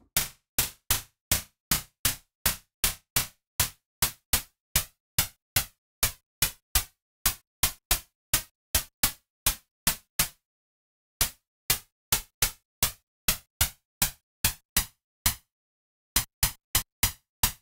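Synthesized snare drum from a VCV Rack modular patch: filtered white-noise bursts, each shaped by a short envelope into a crisp hit. They repeat about three times a second, with two brief pauses, about ten and fifteen seconds in.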